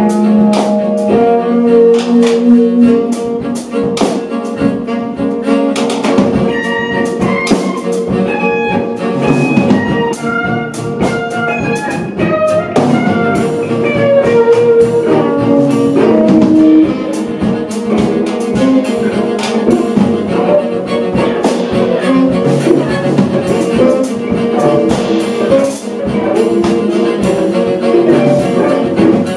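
Live jazz quartet playing: saxophone, bowed cello, electric guitar and drum kit together, with a long held note under moving melody lines and busy cymbal and drum strokes.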